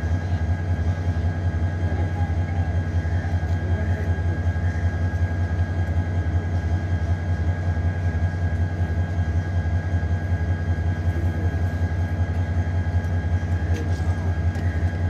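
Diesel engine of a standing passenger train running at idle: a steady low drone with a faint, steady high whine above it.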